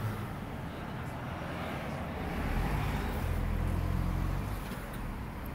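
A car passing along the street: low engine rumble that swells about halfway through and fades again near the end.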